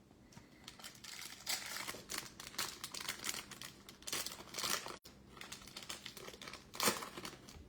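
Trading-card pack wrapper crinkling and rustling in the hands, with irregular crackles and a few louder bursts, as packs are handled and opened.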